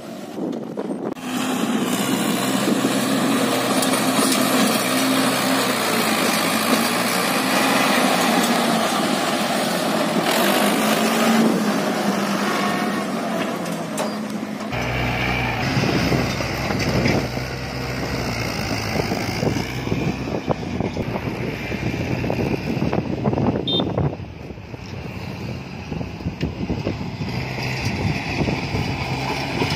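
Mahindra 575 tractor's diesel engine running under load, hauling a fully loaded trolley of sand. About halfway the sound suddenly turns deeper and heavier.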